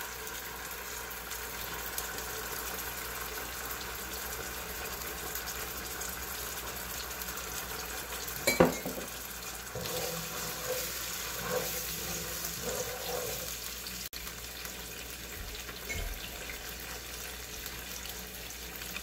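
Hot sauce and chopped garlic sizzling steadily in oil in a nonstick frying pan on low heat. A sharp knock about eight and a half seconds in, then a wooden spatula stirring and scraping in the pan for a few seconds.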